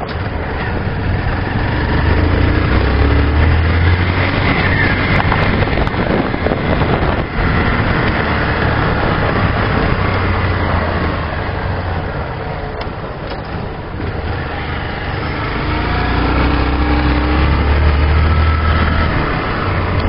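Honda CG 125 Fan motorcycle's single-cylinder four-stroke engine running while riding over cobblestones, with wind and road noise. It pulls louder for a long stretch early on, eases off about two thirds of the way through, then pulls harder again near the end.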